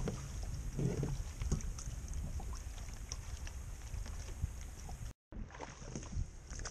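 Wind buffeting the microphone in a steady low rumble, with scattered small clicks and knocks; the sound drops out completely for a split second about five seconds in.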